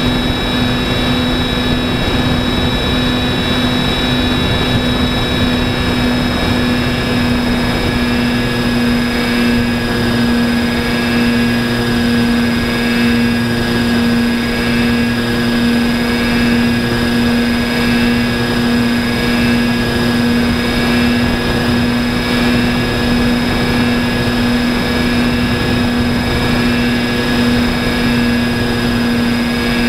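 Electric motor and propeller of a foam FPV model airplane running at steady cruise power. It makes a constant, even-pitched whine over a hiss of rushing air.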